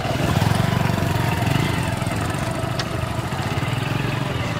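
Motorcycle engine running with an even, rapid beat of firing pulses, louder for the first second or so and then steady.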